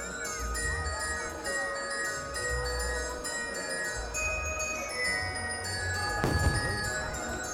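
Holiday fireworks show soundtrack: bright music led by glockenspiel and bells. A firework burst booms once, about six seconds in.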